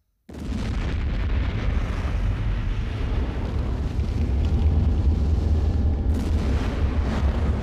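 Film sound effect of a flash fire filling a spacecraft cabin: a sudden loud rushing burn that cuts in abruptly about a third of a second in and keeps going, heavy in the low end, with a sharper crackle about six seconds in.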